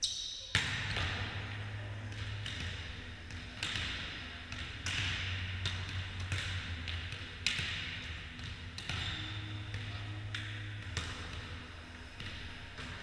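Volleyball being hit back and forth during a rally: sharp slaps of hands on the ball every second or two, echoing around a large sports hall, over a steady low hum.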